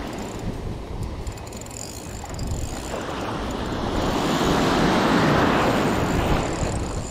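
Small sea waves breaking and washing up a sandy beach, a steady surf hiss that swells to its loudest about five seconds in, with wind buffeting the microphone.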